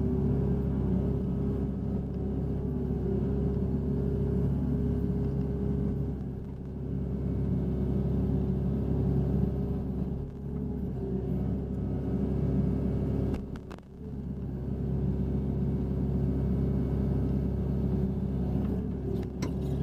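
Hitachi Zaxis 60 USB mini excavator's diesel engine and hydraulics running steadily under digging load, heard from inside the cab. A sharp click comes about two-thirds of the way through, with a brief dip in level, and another click comes near the end.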